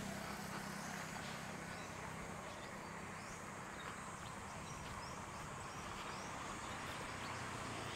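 Faint outdoor roadside ambience: a steady hiss of background noise with a few short, high chirps scattered through it.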